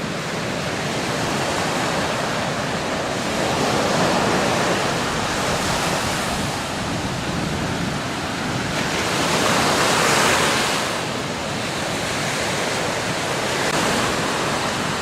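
Ocean surf breaking and washing up a sandy beach, a steady rush that swells louder about four seconds in and again around ten seconds. Wind buffets the microphone.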